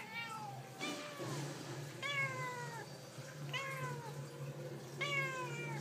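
Domestic cat meowing repeatedly, about five drawn-out meows, each falling in pitch.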